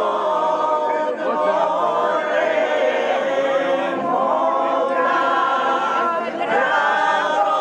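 A group of voices singing together without instruments, in long held notes that move from one pitch to the next.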